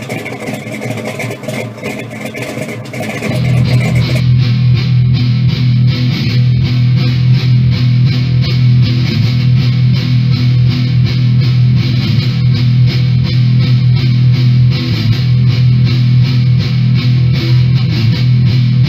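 Guitar-driven rock music with a steady beat, turning louder and heavier about four seconds in.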